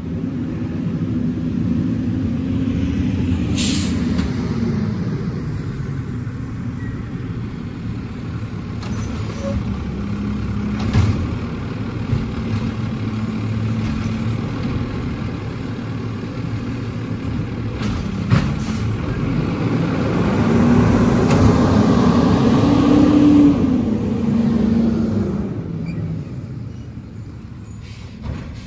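Automated side-loader garbage truck: its diesel engine runs and revs up and down, with short air-brake hisses and a couple of sharp knocks. The engine sound fades as the truck pulls away near the end.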